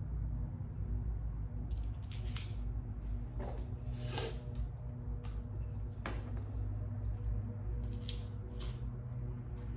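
Small metal docking-hardware pieces clinking and tapping in scattered clicks as they are handled and worked onto a bolt, over a steady low hum.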